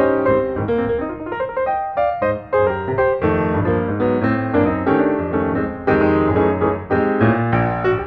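Background piano music: a keyboard melody of struck notes over a steady bass line.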